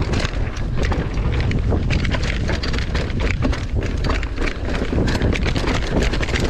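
Mountain bike descending a rough dirt trail at speed: wind rushing over the microphone, with tyre noise and a constant quick rattling and knocking of the bike over bumps.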